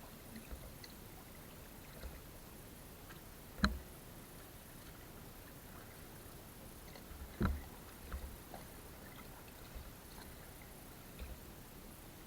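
Quiet water sounds as a raft moves on a river, with a few short wooden knocks; two louder ones come about four and seven and a half seconds in.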